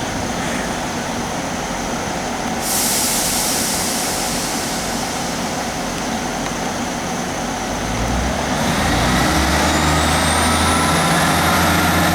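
Class 158 diesel multiple unit at a station, with a loud hiss of air lasting about six seconds. Then its diesel engine opens up, growing louder with a rising whine as the unit starts to pull away.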